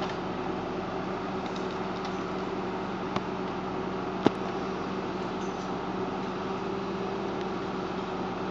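Valtra Valmet 6800 tractor's diesel engine running at a steady pitch while it works a log-loading crane, with two sharp knocks about three and four seconds in.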